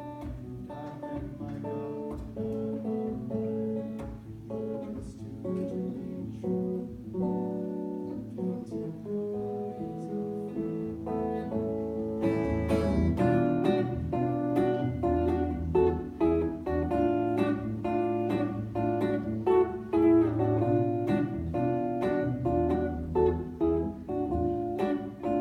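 Solo jazz guitar playing an instrumental passage of chords and single-note runs, growing fuller and louder about halfway through.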